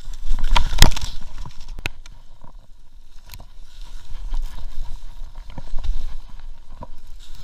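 Wind buffeting an action camera's microphone during a fast run in powder snow, with the hiss and crunch of skis through the snow. Sharp knocks and clicks come through now and then, the loudest about a second in.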